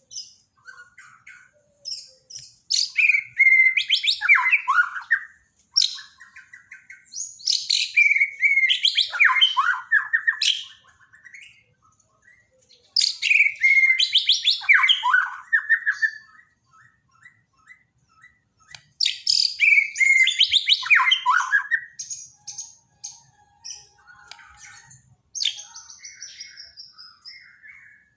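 Songbird singing loud phrases of quick notes that slide down in pitch, a new phrase about every five to six seconds with softer chirps in between. It is a daily masteran song recording, played to coax a murai batu that has stopped singing.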